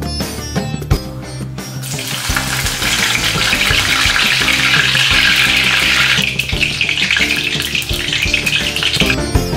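Curry leaves sizzling in hot sunflower oil in a kadai, starting about two seconds in. The sizzle eases after about six seconds and stops near the end, over background music.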